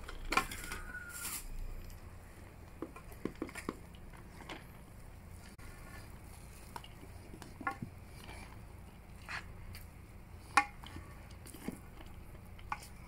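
A metal spoon scraping and knocking against a metal pot as cooked rice is scooped out onto a serving tray: scattered light clicks and scrapes, the sharpest about ten and a half seconds in.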